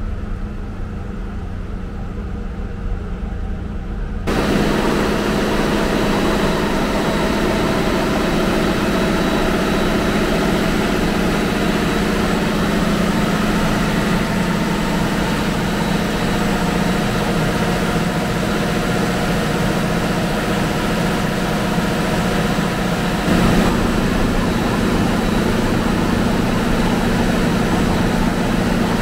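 Loud, steady drone of diesel machinery running in a ferry's engine room, with a strong low hum and several steady tones. It starts abruptly about four seconds in, after a fainter low hum, and gets a little louder later on.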